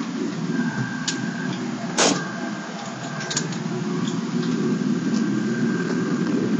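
Pickup truck engine running steadily, heard from inside the cab, with a few sharp clicks or knocks, the loudest about two seconds in.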